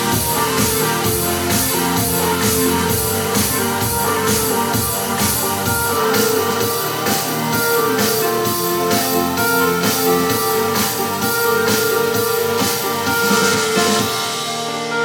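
Rock-style music with guitar and a steady drum beat, played through an Ultimate Ears portable Bluetooth speaker at high volume and recorded from a few feet away.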